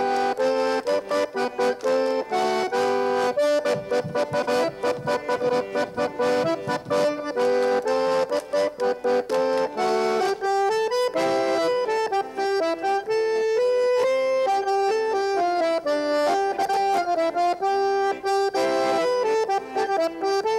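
Accordion playing a Greenlandic dance tune, with short, sharply struck notes in the first half and a more flowing melody from about halfway through.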